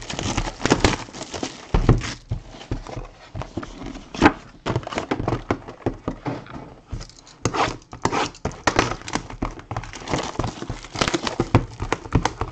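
Sealed trading-card boxes handled on a tabletop: irregular knocks and taps of cardboard on the table, with crinkling of the plastic shrink-wrap being pulled off.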